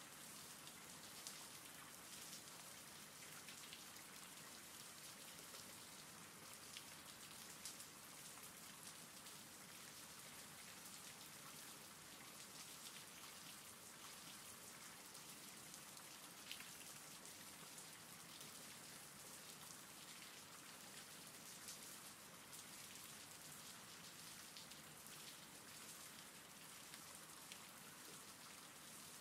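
Faint, steady rain ambience, an even hiss of rainfall with scattered individual drop ticks.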